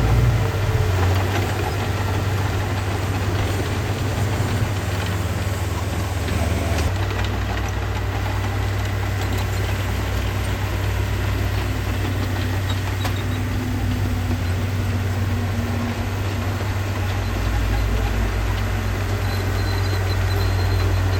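Diesel engine of heavy earthmoving equipment running steadily with a low drone, its pitch and load shifting slightly a few times.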